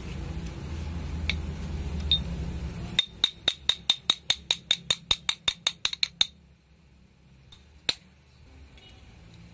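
A quick, even run of sharp metallic clicks, about five a second for about three seconds, during hand work on an engine, followed by one more click near the end. A low hum before it cuts off suddenly just as the clicking starts.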